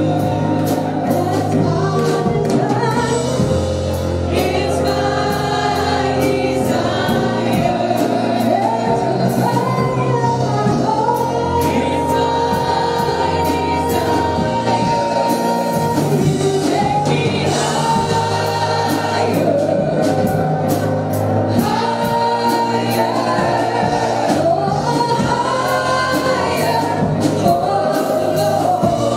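Gospel worship song sung by a group of men and women with instrumental accompaniment, with one long held note about halfway through.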